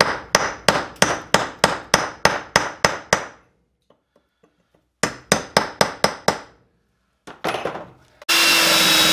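Claw hammer striking a steel chisel against a chunk of zeolite rock, about three ringing blows a second, to cut a groove where the rock has no natural cracks. The blows stop for under two seconds and resume in a shorter run. Near the end a cordless drill starts up, louder than the hammering.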